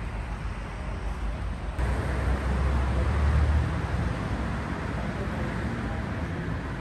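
Steady rumble of road traffic. It changes at an edit about two seconds in and briefly grows louder in the low range around the middle.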